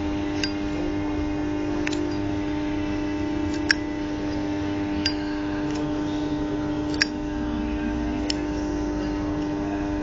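Zippo lighter lid clicking open and shut during flip tricks: about six sharp clicks at irregular intervals, over a steady hum.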